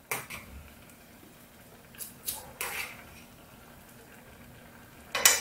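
Metal chopsticks stirring and lifting noodles in a thin aluminium ramen pot. There is a click at the start, a few soft knocks and splashes about two seconds in, and a sharper clink near the end, over a faint steady bubbling of the broth.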